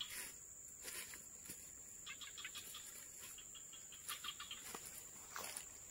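Faint natural ambience: insects droning on one steady high tone, with scattered bird chirps and a couple of falling whistled notes near the end.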